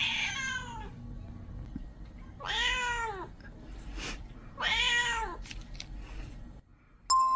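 Black-and-white domestic cat meowing three times, about two seconds apart.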